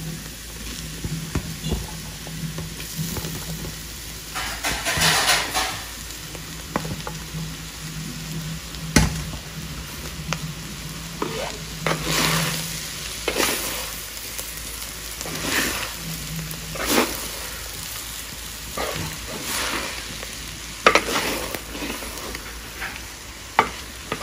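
A spatula stirring and scraping coconut paste frying in coconut oil in a hot pan, with a low sizzle under irregular scraping strokes every second or two. The paste is being fried to drive off the raw smell of the coconut.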